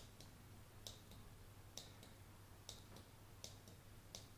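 Faint clicks of the brightness button on a USB selfie ring light, pressed about once a second to step the light down to its lowest setting.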